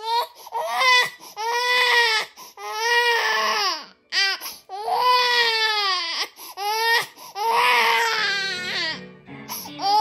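Young infant, under five months old, crying hard in a run of wails about a second each, every cry rising and falling in pitch, with quick breaths between. Soft background music comes in under the crying in the second half.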